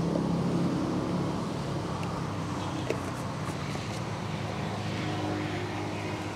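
A motor vehicle's engine running nearby, a steady low hum that slowly fades, over general street noise with a few faint clicks.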